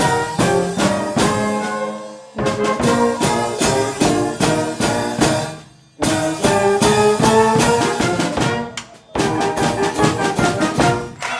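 Concert wind band playing, with brass to the fore, in phrases that die away and come back in sharply about 2, 6 and 9 seconds in.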